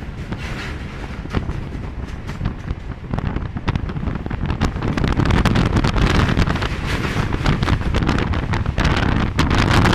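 Passenger train running over a steel truss bridge, heard from an open coach door: a heavy rumble under a rapid, irregular clatter of wheels on the rails, with wind buffeting the microphone. It grows louder about halfway through.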